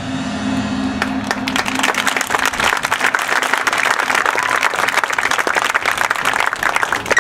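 Audience applauding in the stands as a marching band's final low note dies away, the clapping swelling in about a second in.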